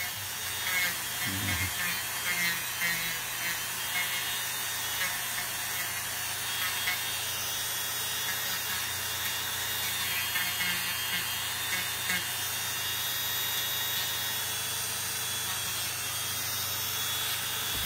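Handheld electric rotary tool running steadily, its bit grinding down toenails, with a steady high whine.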